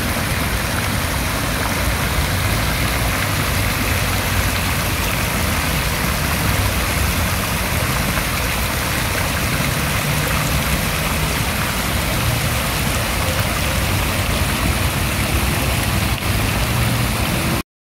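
Fountain water jets spraying and splashing steadily into a basin, a continuous hiss with a low rumble underneath; it cuts off abruptly near the end.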